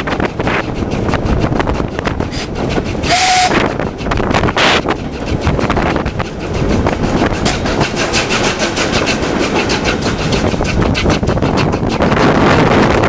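A train running on rails, with a dense, rapid clatter of wheel clicks over a loud rumble and a short tone about three seconds in.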